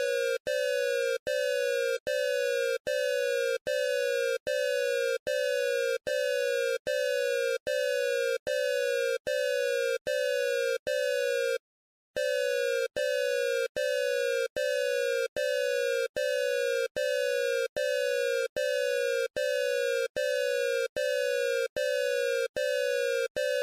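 Colombian emergency alert (EAS) alarm tone: a harsh electronic beep, each beep sliding slightly down in pitch, repeated about five times every four seconds, with one brief pause about halfway through before the pattern resumes.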